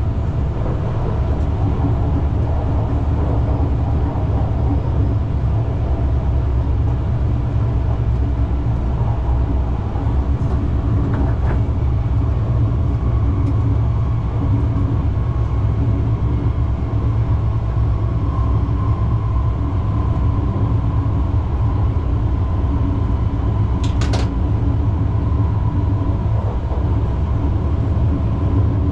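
Tohoku Shinkansen Hayabusa train running at speed, heard from inside as a steady low rumble. A thin higher whine joins partway through, and there is one sharp click about two-thirds of the way in.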